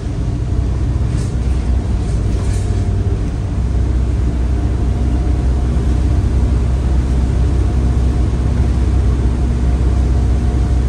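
Bus heard from inside the cabin, a Fulcrum Optimus under way: a steady, loud low engine and road rumble with a faint steady hum, growing a little stronger a few seconds in.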